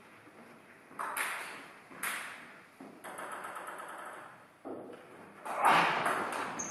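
Table tennis ball clicks ringing in a large hall: single hits about a second and two seconds in, then a quicker run of hits off bat and table near the end as a rally gets going.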